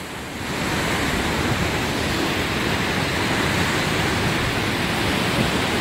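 Steady rushing noise of wind and sea surf, an even hiss with no breaks that rises in level in the first half second.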